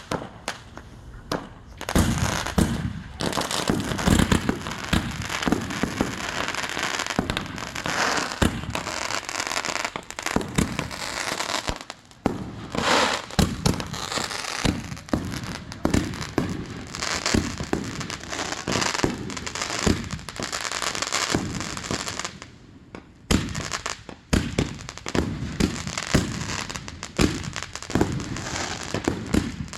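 Aerial fireworks going off in rapid, continuous volleys: many sharp bangs with crackling between them, pausing briefly twice.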